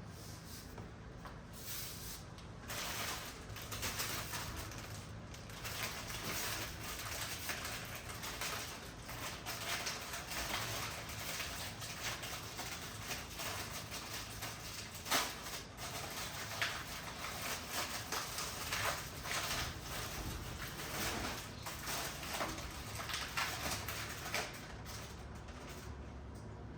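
Kitchen handling noises while breakfast is prepared: irregular knocks, clatters and rustles of utensils and items, starting about two seconds in and dying down near the end, with one sharper knock about halfway through.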